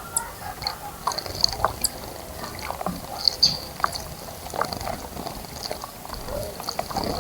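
Small wild birds splashing in the water of a bird bath, with short high chirps and chip notes scattered throughout.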